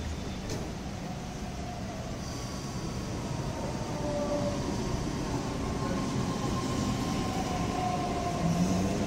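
EG2Tv Ivolga electric multiple unit running in alongside the platform as it arrives: a steady rumble of the train that grows slightly louder, with faint whining tones that drift slowly in pitch.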